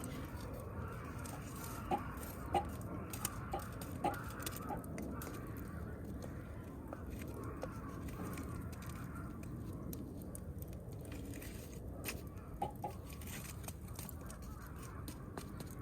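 Wood campfire crackling: a steady low rush with many small sharp pops. A bird calls in short notes, a run of them about two seconds in and two more near the end.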